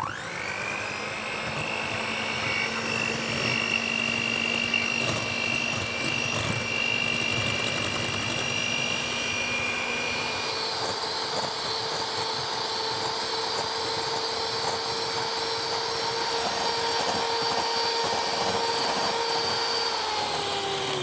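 Moulinex electric hand mixer running steadily, its beaters whisking egg whites with a pinch of salt into stiff peaks in a glass bowl. The motor's whine starts abruptly, changes pitch about halfway through, and begins to wind down right at the end.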